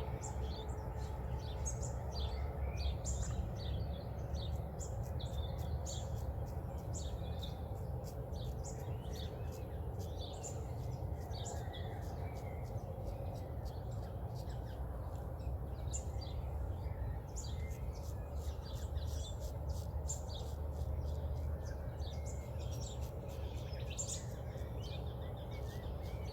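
Dawn bird chorus: many birds chirping and calling in quick, overlapping short notes, over a steady low background rumble.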